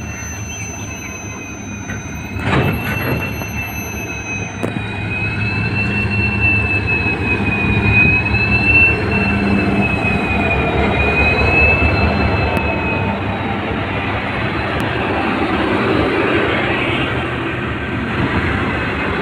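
Passenger train of LHB coaches hauled by a WDP4D diesel locomotive rolling slowly along the platform: a steady rumble of wheels on rail with a high, wavering squeal that dies away about two-thirds of the way through.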